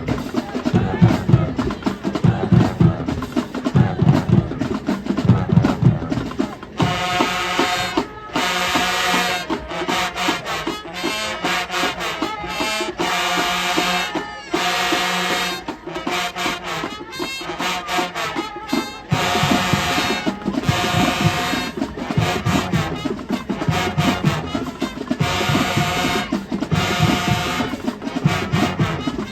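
High school marching band playing: the drumline's heavy bass drums lead for the first several seconds, then the brass section comes in with loud chords in short rhythmic hits. About two-thirds of the way through, the bass drums return under the brass.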